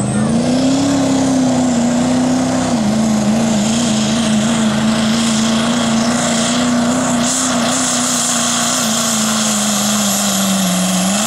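Diesel pickup truck engine held at full throttle under heavy load as it drags a pulling sled, its note steady with slight wavering in the middle. Near the end the revs sag a little, then pick back up.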